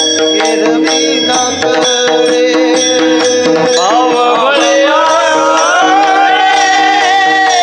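Devotional singing by a male voice, accompanied by mridang drum strokes over a steady sustained drone. The sung melody glides and comes to the fore in the second half.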